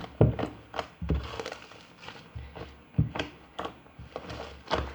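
Fluffy slime being pressed, slapped and peeled off a tabletop: irregular soft thuds mixed with short sticky clicks.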